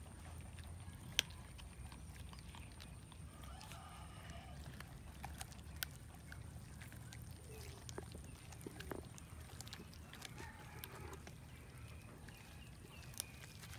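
Several cats chewing and tearing at a cooked chicken carcass, with scattered sharp clicks and crunches of teeth on meat and bone. A faint drawn-out animal call comes twice, once about four seconds in and again near ten seconds.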